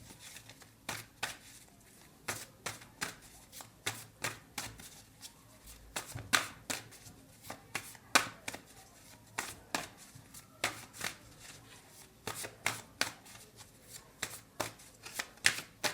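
Tarot cards being shuffled and handled by hand: a string of separate, irregular card snaps and taps, about two or three a second.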